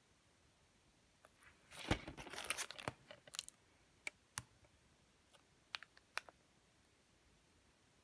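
Clear plastic protective sleeve around a Blu-ray steelbook crinkling as it is handled: a burst of crackling about two seconds in, followed by a few sharp clicks.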